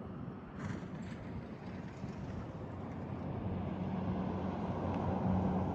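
A vehicle's engine running with road and wind noise while driving, a steady low hum under a rushing noise that grows a little louder toward the end.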